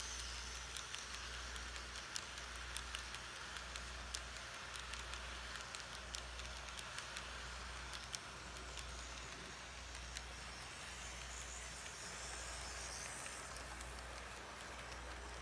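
Model train running on its track: the wheels rolling with many light, irregular clicks over the rail joints, over a steady low hum.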